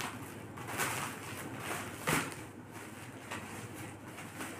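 Plastic packaging being unwrapped by hand, rustling and crinkling, with a sharper crackle about two seconds in.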